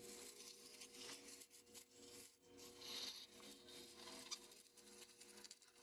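Near silence: faint rubbing, scraping and light clicks of steering-valve parts being handled by hand, with one slightly sharper click a little past four seconds in, over a faint steady hum.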